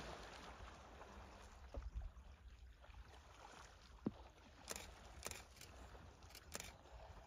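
Faint sloshing and splashing of water around elephants swimming and submerging in a waterhole, with a few short sharp clicks in the second half.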